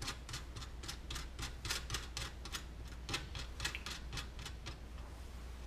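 Wing nut being spun by hand off the threaded stud of a Briggs & Stratton small engine's air filter, giving rapid light clicks about five a second that thin out near the end.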